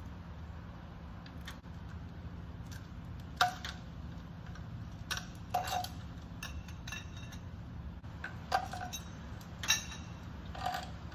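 Hand wrenches on the LSJ Ecotec's 18 mm cam gear bolts: scattered sharp metallic clicks and clanks as the tools are fitted and the cam gears are broken loose, the loudest about three and a half seconds in, over a steady low hum.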